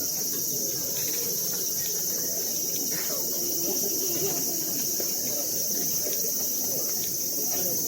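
Chorus of cicadas in the temple trees, a steady high-pitched drone that never lets up, over the murmur of a crowd.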